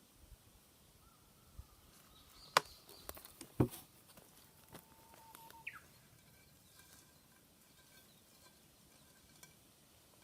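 Quiet outdoor background with faint bird calls, including one short downward-sliding call about halfway through. Near the start there are two sharp knocks about a second apart, with a few lighter clicks around them.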